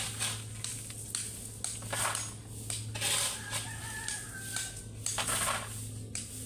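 Steel shovel blade driven into a pile of crushed gravel, each stroke a crunching scrape of stones, repeated several times. About halfway through a rooster crows once.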